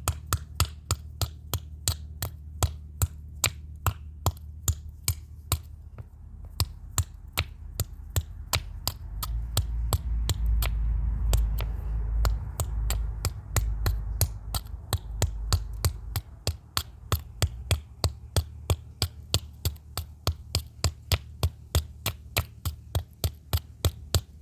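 Rapid, steady hammer blows on an RFID lock keypad, about three strikes a second, breaking it apart. A steady low hum runs underneath and grows louder in the middle.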